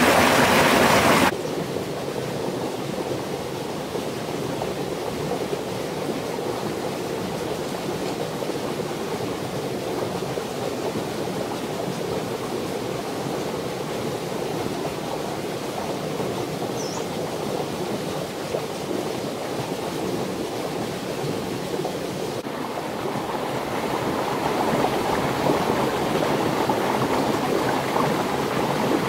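Rushing stream water: a steady wash of noise. It is loudest at the start, drops suddenly just over a second in, and grows louder again near the end.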